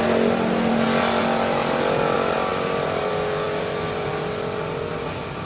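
Steady background drone of a running motor, easing off slightly near the end, with a constant high-pitched cricket chirring above it.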